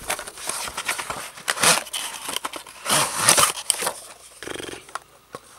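A cardboard retail box being wrenched and torn open by hand: irregular scraping, rustling and crackling, with two louder spells about one and a half and three seconds in.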